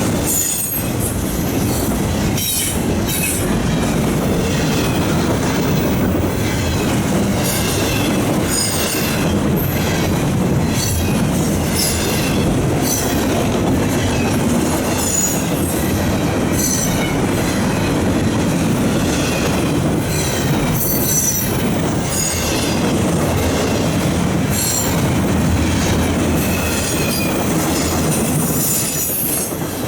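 Intermodal well cars of a CN freight train rolling past: a steady rumble of steel wheels on rail, with clicks over the rail joints and short high-pitched wheel squeals now and then.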